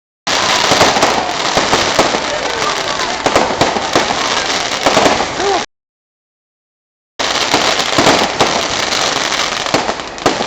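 Fireworks display: a dense run of bangs and crackling from aerial fireworks. It cuts off abruptly for about a second and a half, then resumes.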